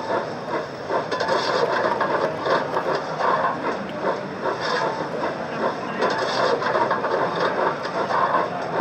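Sound decoder of an O gauge model LMS 'Black 5' steam locomotive playing steam-engine sounds through its small onboard speaker. The sound is a steady, noisy hiss and clatter with irregular short bursts throughout.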